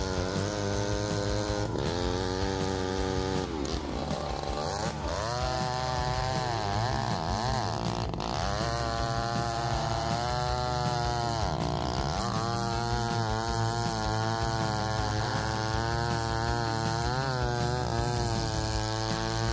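A McCulloch 797 two-stroke chainsaw runs at full throttle while cutting through a large oak log. Its engine pitch sags and recovers several times as the chain loads up in the cut.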